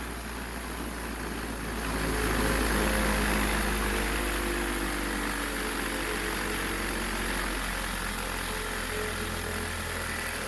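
Old Ohio Forge 6-inch bench grinder's electric motor running with a steady hum, growing louder about two seconds in.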